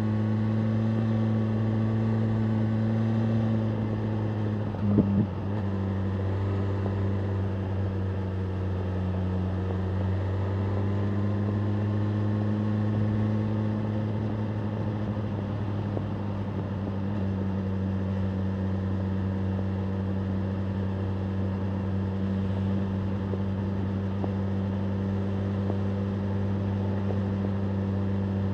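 BMW M1000R Competition's inline-four engine running at a steady, moderate cruise, its pitch holding nearly level with only slight rises and dips, with wind noise around it. About five seconds in there is a brief sharp noise, the loudest moment.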